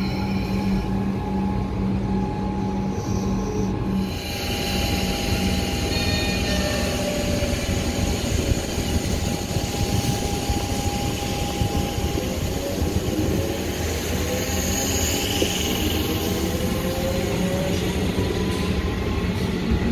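Metro Trains Melbourne electric suburban train running past along the platform: a steady rumble of wheels on rail with a low electric hum, and a faint whine from about twelve seconds in that rises in pitch as the train picks up speed.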